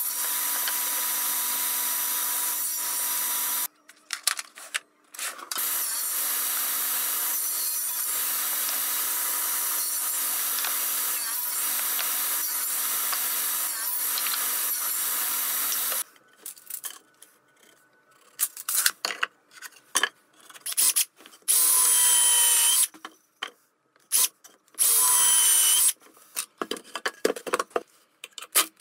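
Table saw running with a steady whine and hum while timber is crosscut on a sled, with a short break about four seconds in; it stops about sixteen seconds in. Then come knocks of timber being handled and a cordless drill-driver running in short bursts, the two longest about 22 and 25 seconds in, driving pocket screws into the frame.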